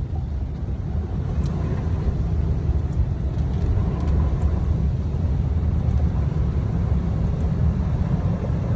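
Steady low rumble of a car driving on a rain-flooded road, heard from inside the cabin: road and tyre noise with the engine beneath it.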